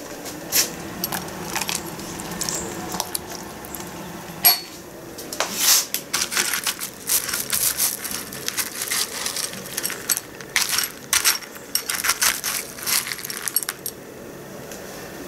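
Metal spoon scooping frozen chopped green garlic from a plastic tub. About four seconds in, a rapid run of clicks and clinks begins, as the spoon scrapes the tub and the frozen pieces knock together, and it eases off near the end.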